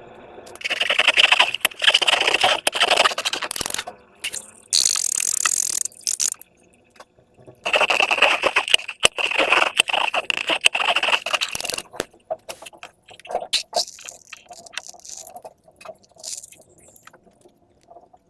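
Slime being squeezed and worked by hand: two long stretches of dense wet crackling and scraping, a short hiss about five seconds in, then scattered sticky clicks.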